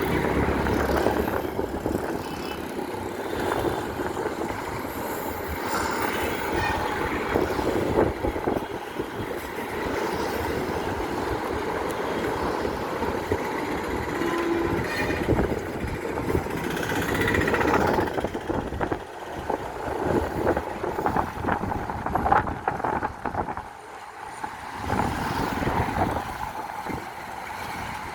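CONCOR container freight train running past, a continuous rumble and clatter of wagon wheels on the rails, its level rising and falling unevenly and easing off somewhat in the last several seconds.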